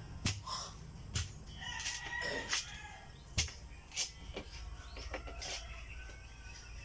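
A rooster crows once, about two seconds in, among several sharp knocks.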